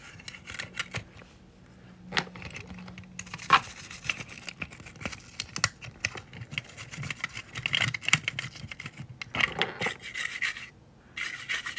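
A toothbrush scrubbing a small plastic toy car in quick, irregular strokes, bristles rasping over the car body with occasional small ticks, pausing briefly near the end.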